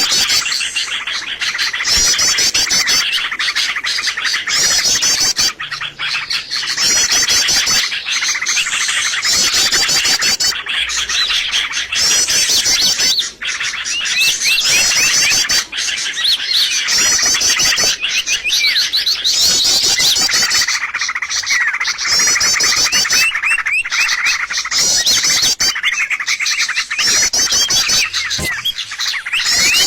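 A dense chorus of small songbirds chirping and twittering rapidly, many calls overlapping without a break: a bird lure (pikat) recording played to draw in wild birds.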